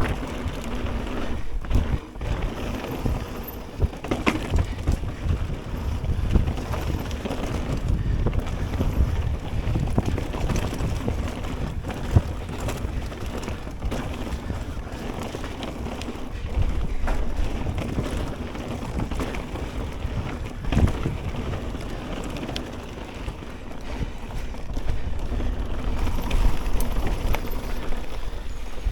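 Ragley BigWig hardtail mountain bike riding down a rough trail: tyres rolling over dirt and stones with frequent rattles and knocks from the bike, and wind buffeting the camera microphone.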